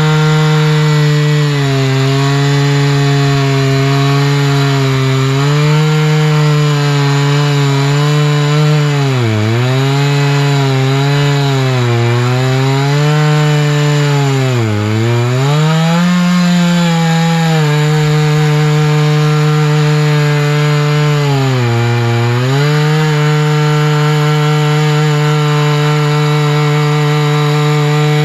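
Two-stroke chainsaw running at high revs while ripping a tamarack log lengthwise on a chainsaw mill, its chain teeth freshly reprofiled. The engine pitch sags and recovers three times as the cut loads it.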